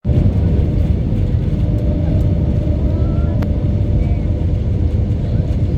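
Airliner cabin noise: the steady, loud low rumble of the jet engines and airflow heard from inside the cabin, with a faint steady hum above it and one small click about three and a half seconds in.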